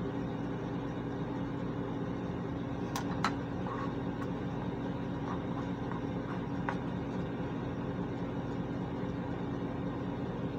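Steady hum of a bathroom ventilation fan running, with a few light clicks and taps as makeup items are handled, about three seconds in and again near the middle.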